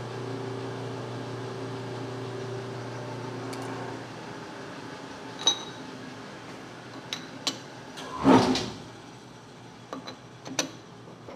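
A steady low machine hum stops about four seconds in. A lathe's four-jaw chuck is then adjusted with a chuck key, giving sharp metal clinks and one louder, longer clunk and scrape about eight seconds in.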